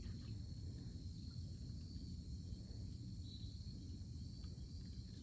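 Steady, continuous high-pitched chorus of insects trilling, with a low rumble underneath.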